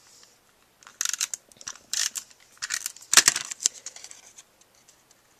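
Cardstock and patterned-paper pieces being handled on a craft mat: a string of short papery rustles and scrapes, the loudest about three seconds in.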